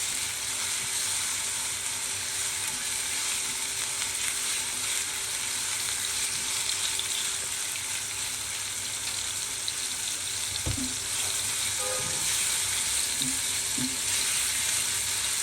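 Marinated chicken pieces frying in hot soybean oil in a pan over a fairly high flame, a steady sizzle. A few light knocks come about two-thirds of the way through.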